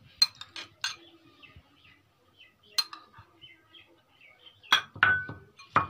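Spoon clinking against a glass bowl and glass serving dish while fruit cocktail is spooned out: a scattering of sharp, separate clinks, the loudest about five seconds in, one of them ringing briefly.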